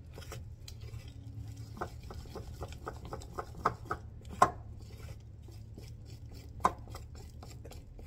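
Thick flour-and-egg dumpling batter being beaten by hand in a glass mixing bowl: a quick, uneven run of soft taps and scrapes of the utensil against the bowl, with a few louder knocks around the middle and later on.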